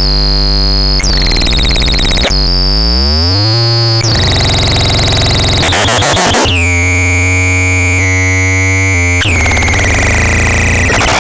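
Synthesizer sounding held, dense tones that switch abruptly to new sounds every one to three seconds. One tone glides upward in pitch about two to three and a half seconds in, and a high tone sweeps down twice later on.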